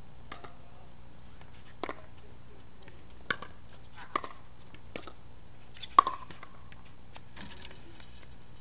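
Pickleball rally: sharp pops of paddles hitting the plastic ball, roughly one a second, the loudest about six seconds in. The hits stop a little after seven seconds.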